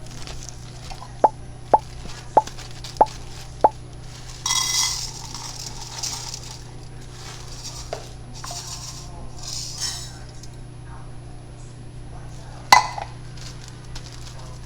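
Kitchen cookware and utensils being handled: five sharp ringing clicks about half a second apart, a short hiss, a few small knocks, then one loud metallic clink near the end, over a steady low hum.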